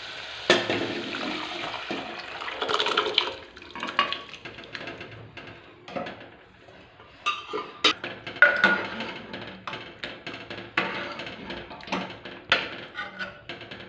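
Cooked toor dal poured and splashing into a pot of hot tomato-onion masala, then a steel ladle stirring it, scraping and clinking against the aluminium pot many times.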